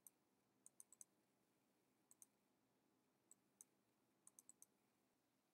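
Near silence with scattered faint, sharp clicks from a computer mouse as items are picked from an on-screen menu.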